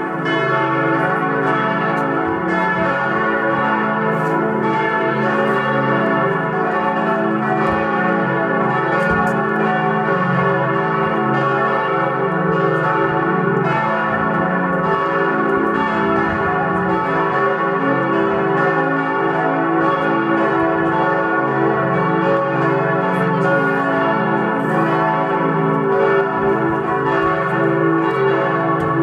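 Full peal of four swinging church bells cast by Perner of Passau in 1972, tuned C♯, E, F♯ and A, ringing together with their strikes overlapping in a steady, unbroken wash of tones.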